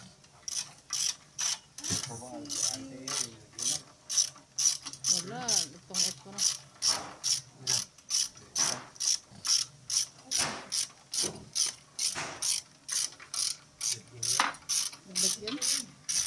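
Hand ratchet wrench worked back and forth on a bolt, a steady run of clicking strokes about two and a half a second.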